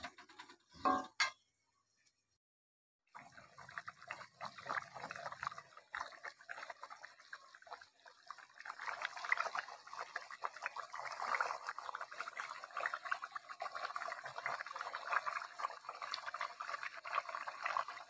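Watery spiced fish curry bubbling in a kadai after water has been added to the gravy, a dense crackle of popping bubbles that grows louder about eight seconds in as it comes to the boil.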